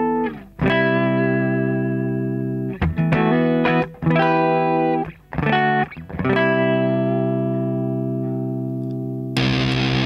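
Electric guitar played through a Big Muff–style fuzz pedal, the Pickdropper Mini Muffin: a run of distorted chords and notes, the last one held with long sustain and slowly fading. Near the end the sound jumps suddenly to a much harsher, hissier fuzz.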